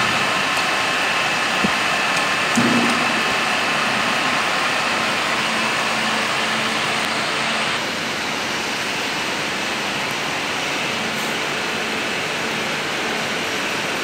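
Radial drilling machine running and drilling holes in a steel mould plate, a steady machine hum with a whine, and two small knocks in the first three seconds. About eight seconds in the whine fades and a slightly quieter steady workshop noise goes on.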